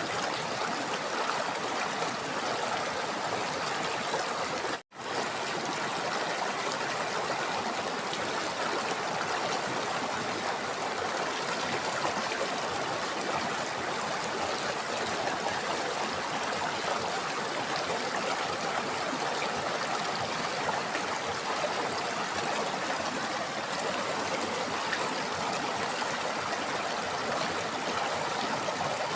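A river flowing steadily over rocks, an even rush of water. It cuts out abruptly for a split second about five seconds in.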